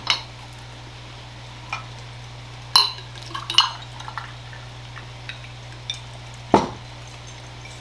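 Scattered light clinks and knocks of dishes, cutlery and a glass being handled on a table, with a louder knock about six and a half seconds in, over a steady low hum.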